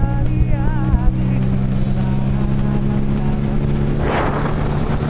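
Boat motor running steadily underway, with a brief wavering tone in the first second and a short rushing noise about four seconds in.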